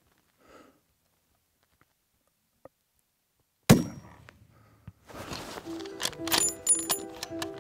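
A single rifle shot about three and a half seconds in, its report dying away over most of a second. Music with held notes comes in about a second later.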